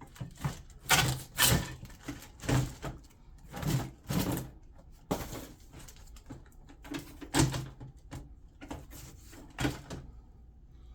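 Irregular knocks, rattles and short scrapes from handling an open countertop dishwasher, its door and plastic interior parts being moved, about eight of them spread over the stretch.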